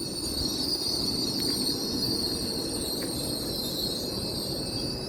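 Squeaky brakes on an LNER Class 801 Azuma train as it slows: a steady, high-pitched squeal of several tones over the low rumble of the train, cutting off at the very end.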